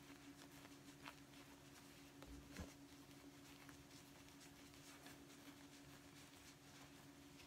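Near silence: a faint steady hum, with a few soft taps and rustles of hands handling an obiage scarf on a wooden table, the clearest about two and a half seconds in.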